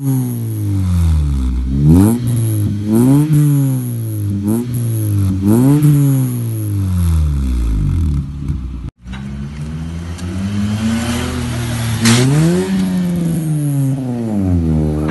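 Toyota Etios fitted with an aftermarket full exhaust system and header, loud, revved in a series of quick blips at standstill, each one rising and falling in pitch. After a brief break the car pulls away, the exhaust note rising under acceleration, dropping, then rising again near the end.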